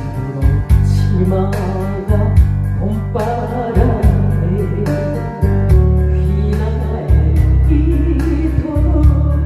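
A woman singing a Korean trot song through a headset microphone over a backing track with a heavy, pulsing bass beat.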